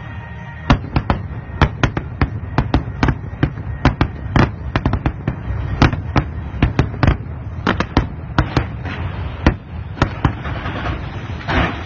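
Aerial fireworks going off in rapid succession: many sharp bangs of bursting shells, several a second and unevenly spaced, over a low rumble. A crackling hiss comes in near the end.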